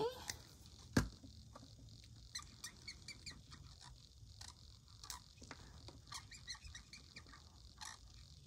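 Sharpie marker squeaking and scratching on a paper tracker card as small circles are coloured in, in many short, quick strokes. There is a single sharp click about a second in.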